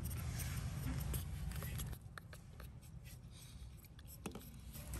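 Faint handling sounds: light scratching and a few small clicks as hands move a plastic ball against a plastic basket, over a low rumble that drops away about two seconds in.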